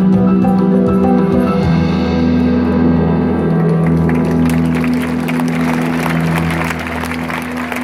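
The final held chord of a live song's accompaniment rings on with a single change of pitch early on. About halfway through, audience applause starts and grows under the fading chord.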